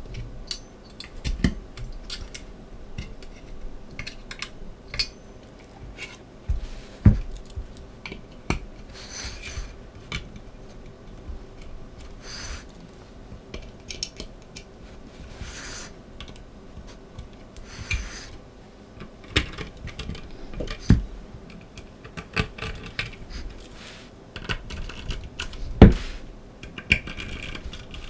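A screwdriver tightening the heatsink screws on a Power Macintosh 9600 CPU card, and the card and its metal heatsink being handled: irregular small clicks and taps, a few louder knocks, and brief scraping now and then.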